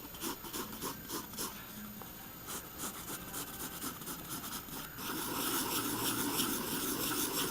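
HB pencil scratching on sketch paper: short separate strokes at first, then from about five seconds in a longer, continuous stretch of sketching.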